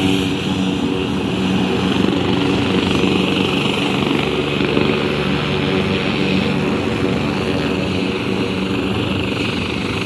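AgustaWestland AW189 helicopter running on the ground: a steady drone of its twin turboshaft engines and rotor, with a high whine over a low hum.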